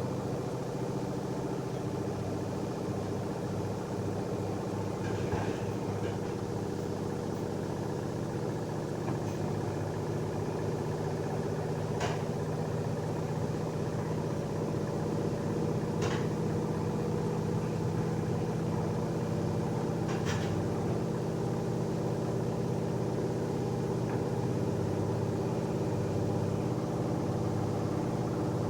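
Washing machine running with a steady motor hum, with a faint tick about every four seconds.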